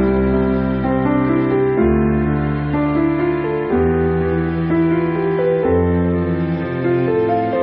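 Slow background music on a keyboard, with held notes over a bass line and chords that change every second or so.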